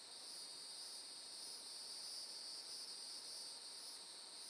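Faint, steady high-pitched trilling of an insect chorus, crickets or similar singing insects, pulsing slightly.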